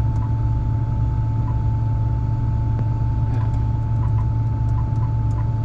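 Combine harvester running, heard from inside the cab: a steady low engine drone with a constant thin whine above it.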